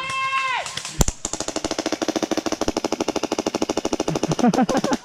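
Airsoft gun firing full-auto in one long, rapid, even burst of sharp cracks, starting about a second in and running almost to the end.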